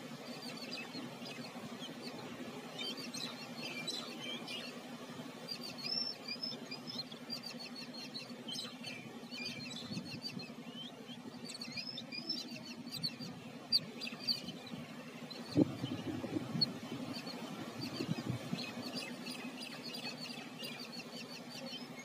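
Babblers chattering in short, high, squeaky calls, repeated throughout, over a steady low hum. A few soft knocks come about two-thirds of the way through.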